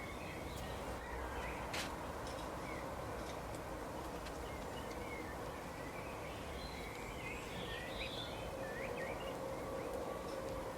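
Small birds chirping in short, scattered calls over a steady outdoor background hiss with a faint steady hum underneath, with one sharp click about two seconds in.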